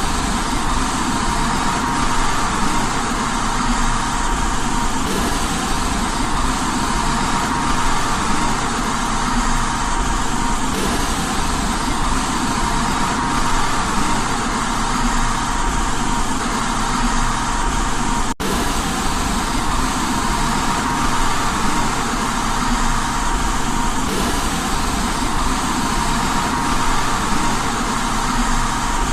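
Continuous white noise for baby sleep: a steady, even hiss with a faint steady tone inside it, broken once by a split-second dropout about eighteen seconds in.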